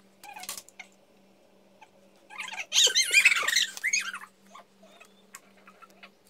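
Cat meowing: a few short meows, then a loud burst of several overlapping, wavering meows about two and a half seconds in that lasts roughly a second and a half.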